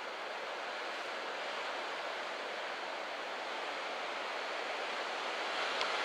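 Surf breaking and washing up a sandy beach: a steady rush of water noise that grows a little louder toward the end.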